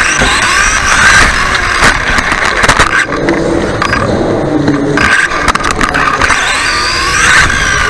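Off-road RC buggies racing, heard from a mic on one of the cars: motors whining up and down in pitch as they accelerate and slow, with the clatter and knocks of the chassis hitting the track and another car. About three seconds in, the high whining drops away for a couple of seconds while the car sits still, then starts again.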